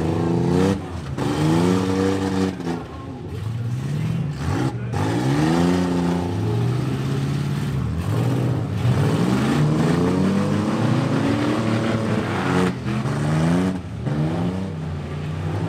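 Demolition derby pickup truck engines revving over and over, each rev rising and falling in pitch.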